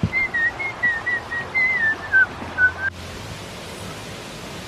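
A person whistling a short run of wavering notes, drifting down in pitch. About three seconds in it breaks off sharply and gives way to a steady rush of water.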